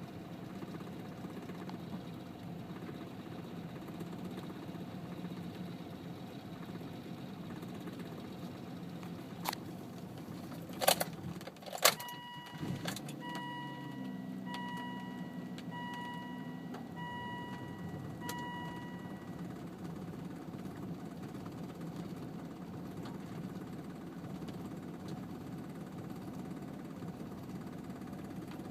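2002 Volvo S60's inline five-cylinder engine idling steadily in park after a cold start, with the knock or rattle and heavy vibration that the owner gets when it starts cold. About eleven seconds in there are a few sharp clicks. A repeating electronic chime follows, sounding about once a second for about seven seconds.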